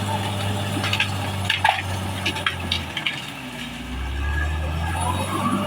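Caterpillar D6R XL bulldozer's diesel engine running, its note dropping about halfway through and settling lower, as under load. A run of sharp knocks and cracks in the first half, from the tracks and blade working through ground and wood.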